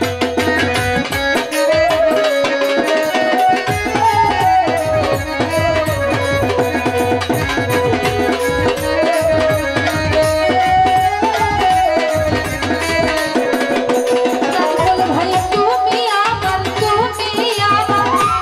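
Instrumental interlude of a live Bengali Baul folk song: a bamboo flute carries the melody over a hand-played barrel drum and keyboard. A woman's singing voice comes back in near the end.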